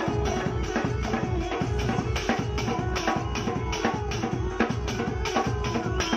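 Dance music with a steady drum beat.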